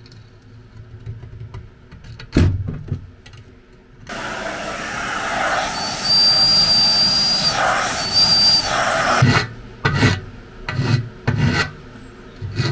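Hand deburring tool scraping the inside edge of an aluminium port welded onto a radiator's side tank, in several short strokes near the end. Before that, from about four seconds in, a loud steady rushing noise with a high whine runs for about five seconds and stops abruptly.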